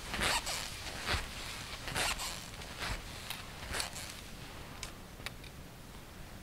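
Ski strides on frozen snow crust, the ski bindings squeaking with each stride, about one a second, then fading after the first few seconds. The bindings are in need of maintenance.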